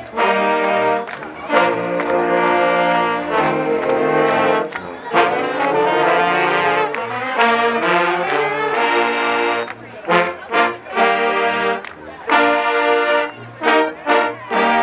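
Brass-band music: held chords at first, then upward pitch slides about five to eight seconds in, then short, punchy chords with gaps between them.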